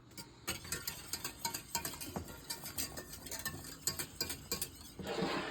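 A utensil stirring thick gravy in a pot, knocking and scraping against the pot's sides and bottom in quick, irregular clicks. A louder, longer rush of noise comes near the end.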